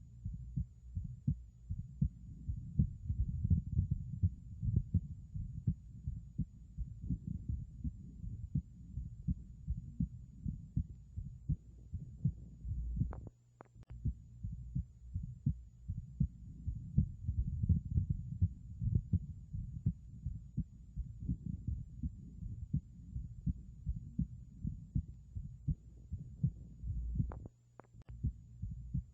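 Heartbeat heard through a stethoscope: the abnormal heart sound of a bicuspid aortic valve, a steady run of low beats. Twice it breaks off briefly with a sharp click.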